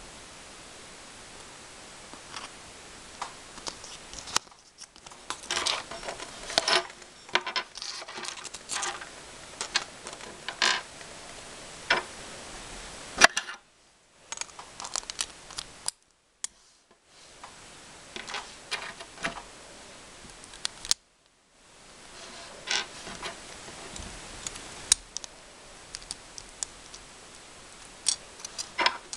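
Plastic toy packaging being handled and opened by hand: irregular clicks, crackles and rustles, with the sound dropping out briefly a few times.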